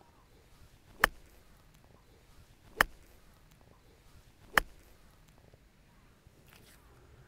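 Three sharp, crisp clicks of a golf wedge striking a ball, evenly spaced under two seconds apart.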